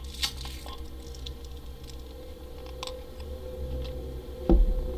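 Scattered faint clicks and soft handling rustle over a steady low hum, with one dull thump about four and a half seconds in.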